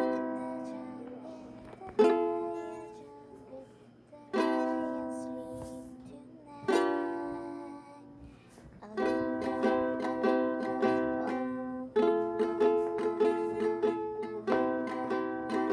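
Ukulele being strummed: single chords left to ring out and fade roughly every two seconds, then steady rhythmic strumming from about nine seconds in.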